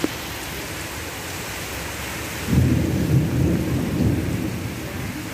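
Steady rain, with a low rumble of thunder starting about two and a half seconds in and rolling for roughly two seconds.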